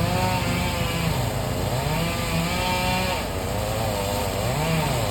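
Chainsaw engine running under load, its pitch dipping and rising again every second or so as it bites into the wood and frees up.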